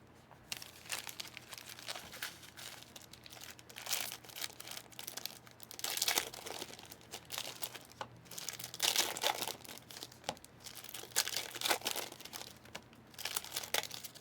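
Foil trading-card pack wrappers of 2023 Panini Select football being torn open and crinkled by hand, in irregular crackly bursts.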